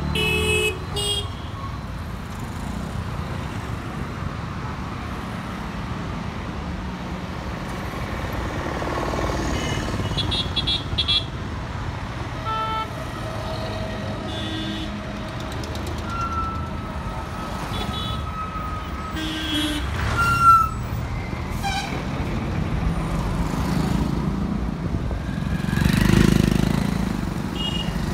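Busy road traffic of cars and motorcycles passing close by: a steady engine rumble and tyre noise, with short horn toots here and there, over and over. One vehicle passes loudest near the end.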